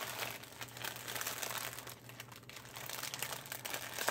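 Packaging crinkling and rustling in irregular bursts as it is handled.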